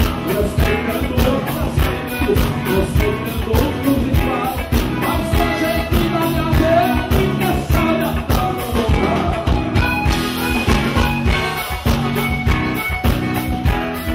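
Live band music with a steady drum beat and a man singing, from a gaúcho band performing on stage.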